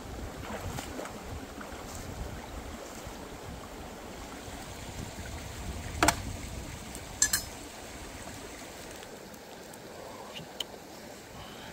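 Shallow stream water running over rocks, a steady rushing hiss. Sharp clicks cut through it, one about six seconds in and a quick pair about a second later.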